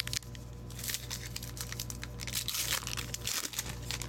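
A trading-card pack wrapper crinkling and tearing as it is opened by hand: a run of short, irregular crackles, over a steady low electrical hum.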